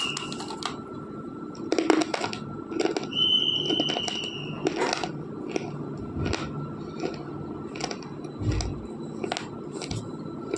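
A bunch of white slate pencil pieces being bitten and chewed close to the microphone: sharp, dry crunches at an uneven pace, about one a second. A high steady whistle sounds once for over a second, about three seconds in.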